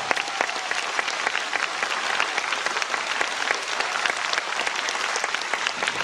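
Concert audience applauding steadily after a song.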